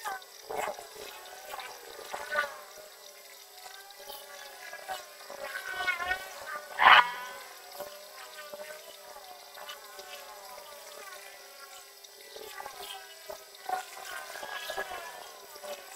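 CO2 laser cutter's gantry motors whining as the laser head moves, the pitch gliding up and down as the head speeds up, slows and changes direction, with a sharper burst of movement about seven seconds in. A steady hum runs underneath.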